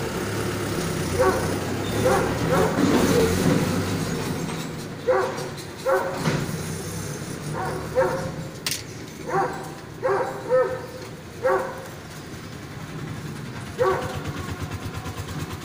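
A dog barking repeatedly, about ten short single barks spaced irregularly a second or more apart, over a steady low background noise that is louder in the first few seconds.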